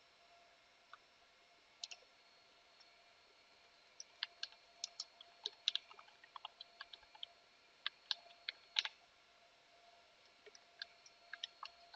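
Computer keyboard keys clicking as text is typed: a few scattered keystrokes, then a quick run of them lasting several seconds, a pause, and a few more near the end.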